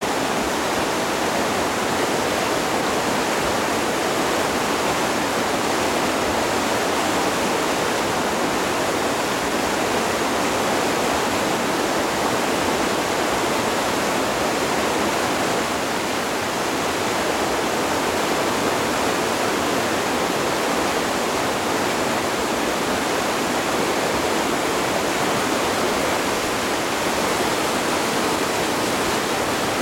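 Grade 4 whitewater rapid on an alpine river: water rushing and churning over boulders in a steady, unbroken wash of noise.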